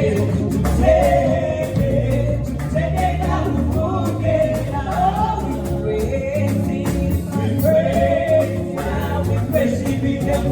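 Gospel worship song: voices singing a melody over a band with a bass line and a steady beat.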